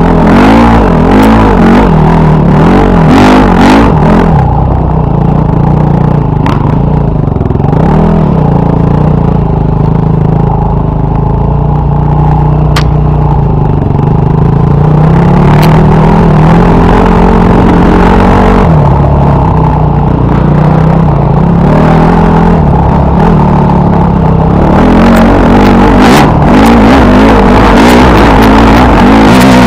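Dirt bike engine heard from a camera mounted on the bike, revving up and down as it rides a muddy trail, with sharp clacks from the bike over the ground. The throttle work is busiest near the start and again near the end, steadier in the middle.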